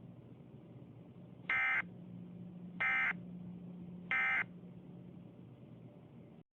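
Emergency Alert System end-of-message data bursts: three short, harsh digital screeches about a second apart, closing the civil emergency message. A faint steady low hum runs underneath and cuts off near the end.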